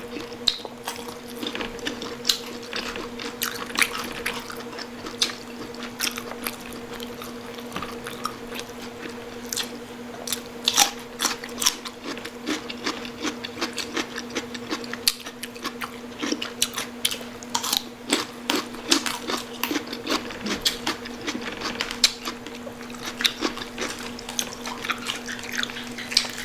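Close-up mouth sounds of people chewing and biting crispy pata, deep-fried-style pork knuckle, with frequent short, wet smacks and crunchy clicks. A steady low hum runs underneath.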